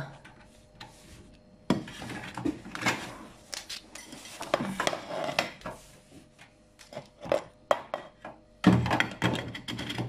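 Handling noise: scattered clicks, scrapes and knocks as the plastic drain-filter cap of a Candy washing machine is unscrewed and a rag and a plate are shifted about on the floor beneath it, with a louder knock near the end.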